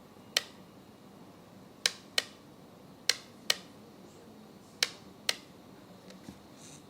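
Plastic switch on an RC transmitter flicked back and forth, making seven sharp clicks, mostly in quick pairs about every second and a half, to cycle the road roller's rotating warning light through its modes.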